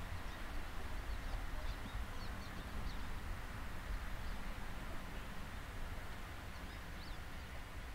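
Outdoor field ambience: a steady low rumble with faint, scattered bird chirps.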